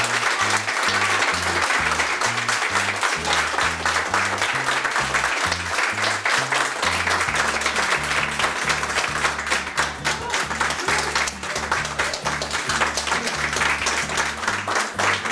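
A roomful of people applauding, with steady dense clapping over background music that has a regular stepping bass line.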